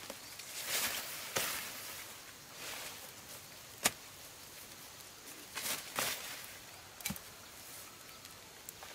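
Dry corn stalks and leaves rustling as they are handled, with a few short sharp cracks, the loudest about four seconds in.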